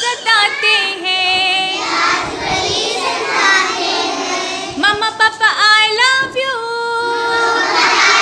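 Young children singing a song together, with one long held note near the end.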